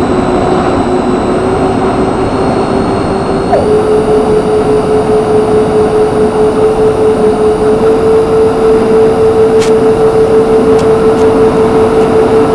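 Twin electric ducted fans of an RC A-10 model jet whining steadily, heard from on board over loud rushing airflow. The whine steps up a little in pitch about three and a half seconds in and again around eight seconds, as the throttle is raised.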